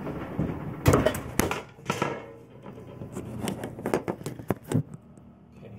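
Clattering knocks of cookware being pulled out of an oven and handled, with bumps as the camera is moved; the knocks come irregularly for about four seconds, then die away.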